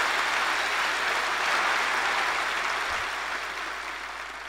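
A large audience applauding steadily, the clapping dying away over the last second or so.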